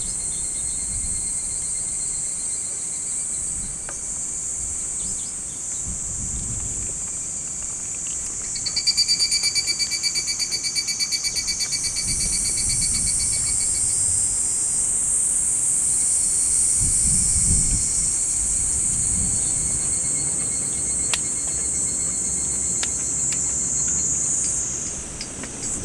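Summer insects singing: a steady high-pitched chorus throughout, with a louder, rapidly pulsing trill from about nine to twelve seconds in. Wind gusts rumble low on the microphone now and then.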